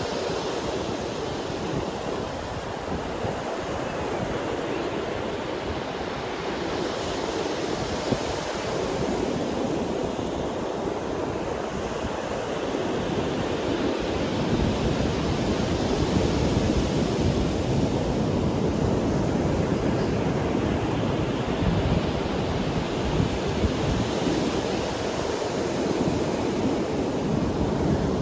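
Ocean surf breaking and washing up a sandy beach in a continuous, rolling roar of waves, growing louder from about halfway through.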